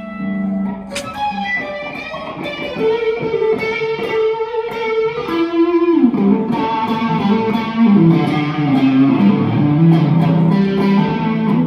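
Electric guitar played through an amplifier: a single-note lead line with long held notes, sliding down about six seconds in, then moving through lower notes.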